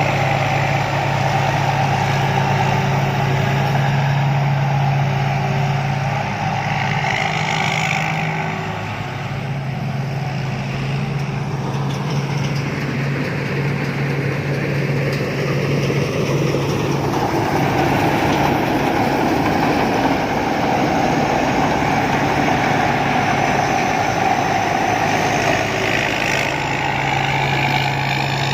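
Rice combine harvester's diesel engine running with a steady, continuous hum, easing slightly about a third of the way through.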